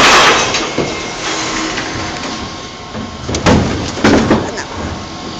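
Refuse lorry's rear bin lift tipping a wheelie bin: a loud rush of rubbish falling into the hopper at the start, then the lorry's steady hydraulic hum. About three seconds in come several sharp knocks and clatters of plastic wheelie bins being handled.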